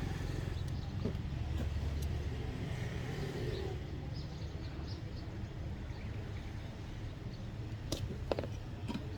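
Steady low background rumble, with a few small sharp clicks and taps near the end.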